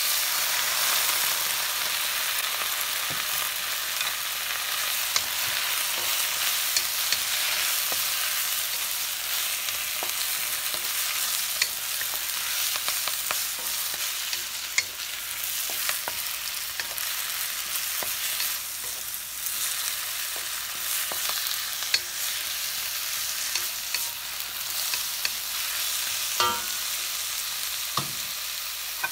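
Chinese broccoli sizzling in a hot wok over medium-high heat while it is stirred and tossed with a wooden spatula. The sizzle swells in the first second, just as salt and cooking wine go in. Frequent short knocks and scrapes of the spatula against the wok come through the hiss.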